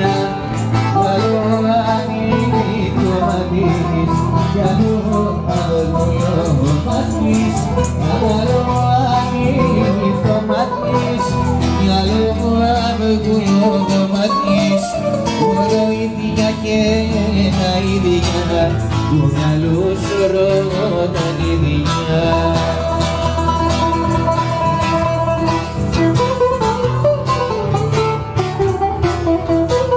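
Live acoustic guitar music: two acoustic guitars playing together, amplified through a PA, with a man singing into a microphone.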